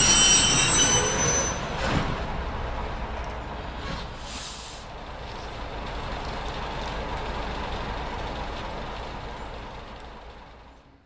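Slow-moving freight train of GE 80-ton centercab locomotives and gondolas: steel wheels squealing on the rails for the first second or so, then the train rumbling past with a brief hiss about four seconds in, fading out near the end.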